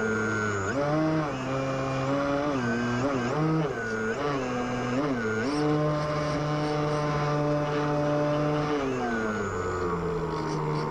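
Electric motor and propeller of an RC Super Cub model plane, heard from a camera mounted on the plane. Its pitch rises and dips several times with throttle changes, holds higher for a few seconds, then drops back near the end.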